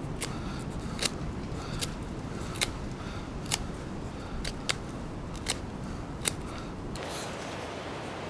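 A series of sharp knocks or clicks, about one a second, over a steady wind rumble; near the end the knocks stop and a brighter rushing hiss takes over.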